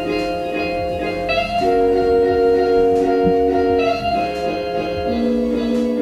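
Music with guitar playing held chords that change every second or two.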